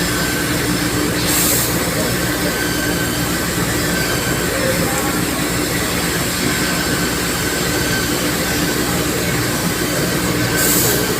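CNC laser cutting machine running: a steady mechanical noise with a constant low hum, broken by two short hisses of air, one about a second in and one near the end.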